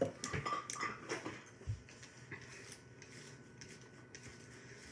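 A few short, soft clicks and rustles in the first two seconds, then quiet room tone.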